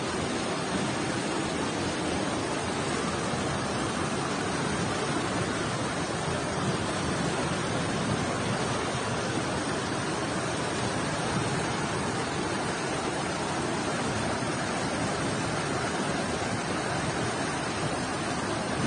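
Floodwater rushing through a street as a fast, muddy torrent, a steady even rush of water with no pauses.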